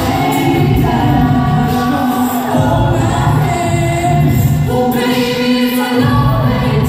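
A vocal group singing in harmony, with held chords changing every second or so over a pulsing low bass part.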